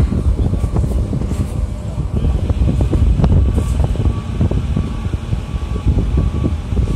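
RER D commuter train running, heard through an open carriage window: a steady low rumble with short knocks of wheels on rail and wind on the microphone. About four seconds in, a repeating high beep joins, a trackside works vehicle's reversing alarm.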